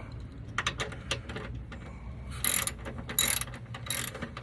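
Socket ratchet wrench clicking as it tightens a side-step mounting bolt, with light clicks at first, then three louder runs of ratcheting strokes in the second half.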